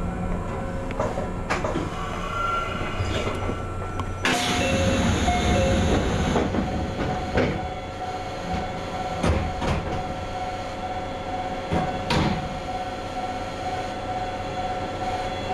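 Mizuma Railway 1000 series (ex-Tokyu 7000 series) electric train standing at a station with its equipment running. About four seconds in, a sudden loud hiss of air lasts about two seconds. A steady hum follows, broken by scattered clicks and knocks.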